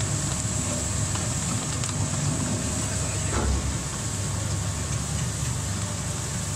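BM600 single-shaft shredder running steadily as its rotor grinds plastic bags and film: a steady low drone with a noisy grinding hiss over it.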